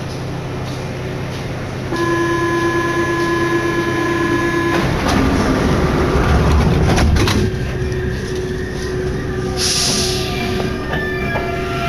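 Paris Métro MP89CA rubber-tyred train heard from inside: a steady warning tone sounds for about three seconds, then the car rumbles with a few sharp clanks, and a short hiss comes near the end.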